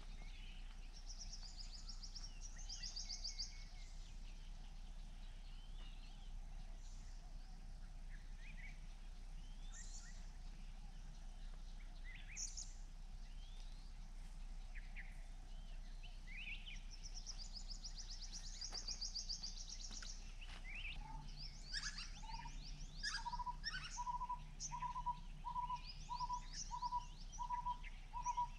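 Several wild birds calling: scattered high chirps and fast trills, and from about two-thirds of the way in a steady series of short, even single notes about one and a half a second.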